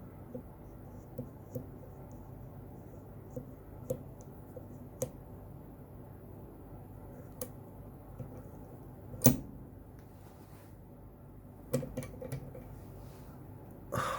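Abus 88 disc-detainer padlock being picked: small metallic clicks as the pick turns the discs, with one sharp louder click about nine seconds in and a few more clicks and a short clatter near the end.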